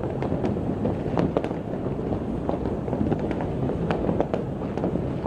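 Fireworks going off across a city: a dense, continuous crackle of pops and bangs, several a second, over a steady low rumble.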